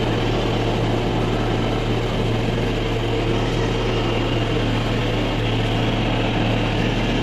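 Cotton candy machine running: its electric motor spinning the head at speed, a steady drone with a low hum.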